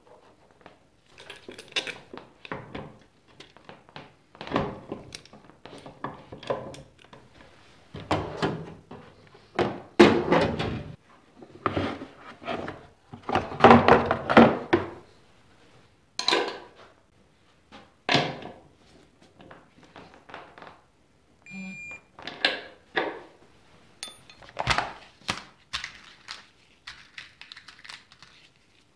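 Workshop handling noises during reassembly of a Honda ATC 90's rear axle: a run of irregular knocks, clicks and clatters as a socket and extension work the axle nut, a plastic torque wrench case is opened and handled, and steel cotter pins rattle in a plastic assortment box near the end. A brief electronic beep sounds about three-quarters of the way through.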